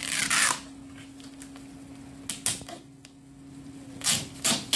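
Masking tape being pulled off and torn in short strips, in three quick bursts of rasping noise. A faint steady low hum runs underneath.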